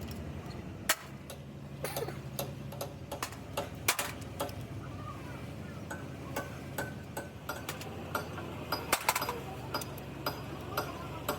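Irregular sharp clicks and knocks of hand tools on metal parts, the loudest about a second in and twice near the nine-second mark, over a steady low hum.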